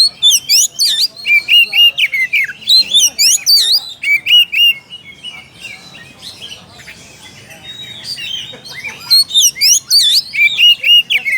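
Oriental magpie-robin (kacer) singing loud, rapid whistled phrases of sweeping and repeated notes, the challenge song with which it calls out a rival. The song goes quieter for a few seconds midway, then comes back loud about nine seconds in.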